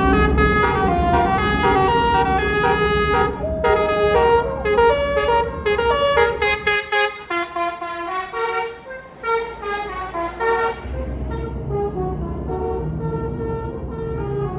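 A bus's multi-trumpet telolet "basuri" musical air horn plays a fast tune of short changing notes over the engine's rumble. The tune stops about eleven seconds in, and a fainter steady tone and engine noise carry on.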